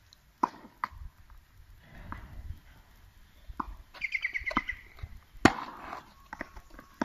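Tennis ball hit back and forth on an outdoor hard court: sharp pocks from racquet strikes and bounces at irregular intervals, the loudest about five and a half seconds in.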